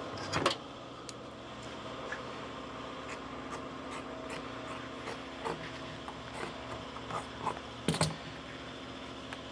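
A sheet of vinyl upholstery material being cut and handled: faint rustling and a few sharp clicks, over a steady hum.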